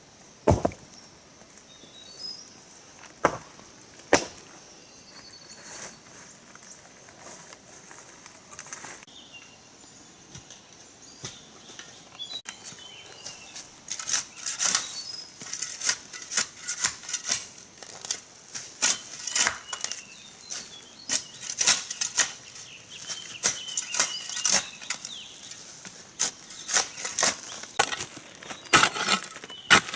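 Hand hoe chopping into soil and leaf litter, a steady run of strikes about two a second from about halfway through; before that only a few scattered knocks.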